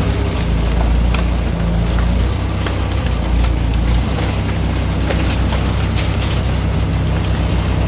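An engine running steadily with a low hum, with scattered sharp clicks and cracks over it.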